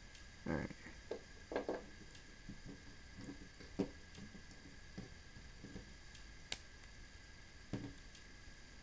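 Hands handling a Marvel Legends Ant-Man plastic action figure: soft rubbing and handling noises with scattered small clicks as its parts are fitted and posed, and one sharper click about six and a half seconds in.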